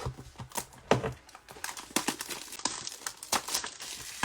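Trading card packaging being handled and opened: plastic wrapper crinkling amid a run of sharp clicks and taps.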